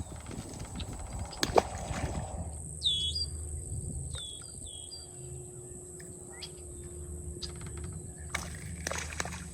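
A few short bird chirps about three to five seconds in, over a steady low outdoor rumble, with a few sharp clicks near the start and again near the end.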